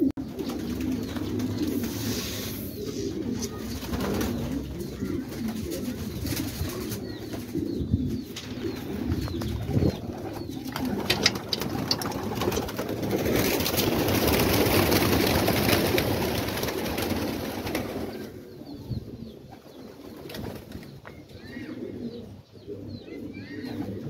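A flock of domestic pigeons cooing over and over. A few sharp clicks come about ten seconds in, and a louder rushing noise swells for several seconds around the middle before the cooing goes quieter.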